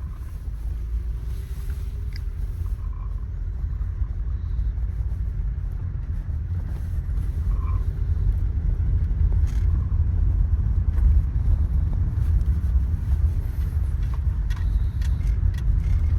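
Low road and engine rumble heard inside a 2012 Toyota Sienna minivan's cabin while driving, growing gradually louder, with a few faint clicks near the end.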